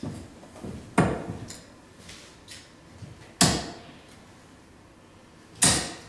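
Three darts thudding one after another into a Winmau Blade bristle dartboard, a sharp thunk roughly every two and a half seconds.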